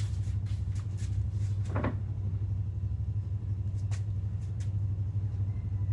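A steady low hum, with a few light clicks and one short sound about two seconds in.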